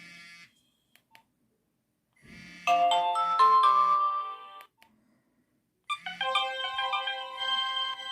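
Nokia 1110i phone speaker playing its preset tones. The tail of one tone fades out, then a short melodic tone of about two seconds plays, with several notes sounding at once. About six seconds in, the next tone begins.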